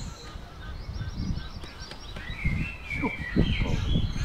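Birds calling repeatedly in short chirps and honking calls, busiest in the second half, over low gusts of wind on the microphone.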